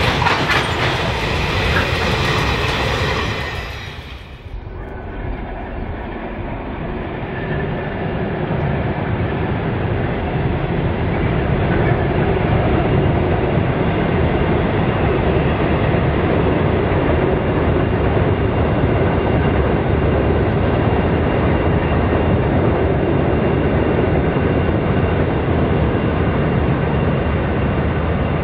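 Freight wagons rolling past on the rails for the first few seconds. After a sudden change around four seconds in, the diesel engines of two EMD-type locomotives take over, working steadily as they haul a loaded train. Their drone builds over the next few seconds and then holds steady.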